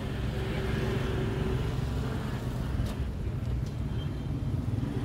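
Motorbike traffic: small engines running steadily, a continuous low rumble with a faint engine tone in the first second or so.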